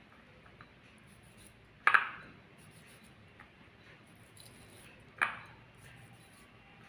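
Two sharp clinks of glassware against the glass seasoning bowl or plate, about three seconds apart, each ringing briefly.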